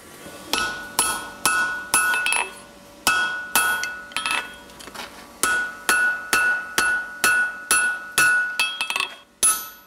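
Hand hammer striking hot steel on an anvil, about two blows a second in three runs with short pauses between. Each blow rings briefly. This is the hinge plate of a pair of flat bit tongs being forged.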